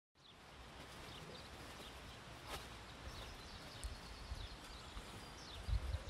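Faint countryside ambience: a steady hiss with small birds chirping now and then, and one sharp tick about two and a half seconds in. A low rumble starts near the end.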